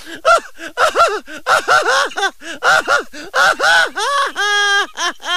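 A very high-pitched voice in quick syllables that rise and fall in pitch, with a few longer held notes near the end.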